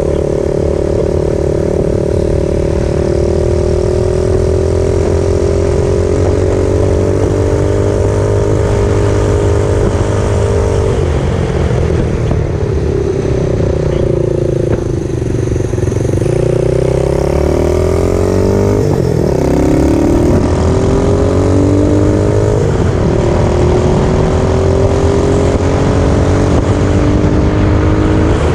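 Engine of a homemade reverse trike running under way, with road and wind noise. Its pitch sags about a third of the way through, then climbs in a few steps as the trike speeds up.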